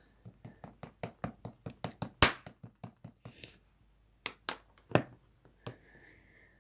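Melona slime being pressed and poked by hand, making a quick, even run of wet clicks and pops, about five a second, for the first three seconds. A few louder, spaced-out pops follow near the end.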